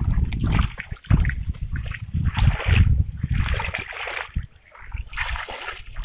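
Shallow muddy marsh water splashing and sloshing in irregular bursts as a person wades and gropes through it by hand.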